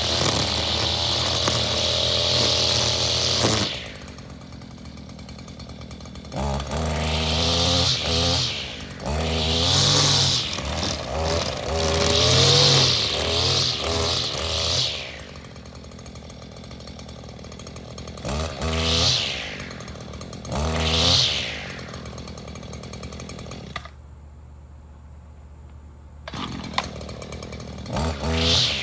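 Small two-stroke engine of a handheld power tool revving hard, dropping to idle and being blipped up and down again and again. It cuts out briefly about two-thirds of the way through, then revs again, running well.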